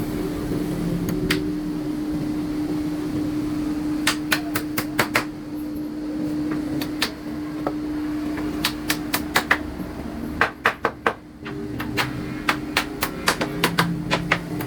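Runs of quick, sharp knocks, about four to six a second in groups of several, like hammer blows on wood, over a steady hum that cuts out briefly near the end.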